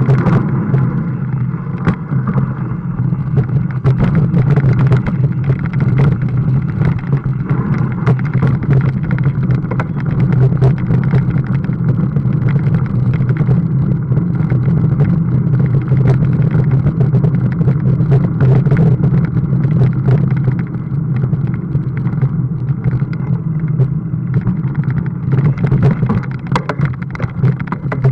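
Steady low rumble of wind and vibration on a mountain bike's on-board camera as the bike climbs through town streets, with frequent small knocks and rattles from bumps in the road and cobbles.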